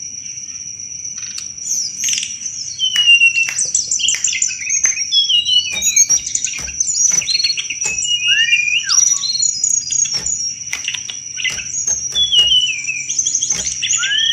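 Tledekan gunung songbird singing in quick, varied phrases of chirps, trills, sliding whistles and sharp clicking "cetrekan" notes, a bird song used as a lure to set anis thrushes singing. A steady high-pitched whine runs underneath.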